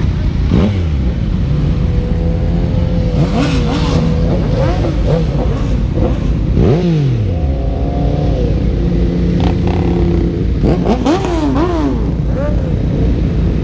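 Sport motorcycle engines idling in a group while riders blip the throttle as they pull away: a string of quick revs that rise and fall, the largest about seven seconds in and a cluster of short revs near the end.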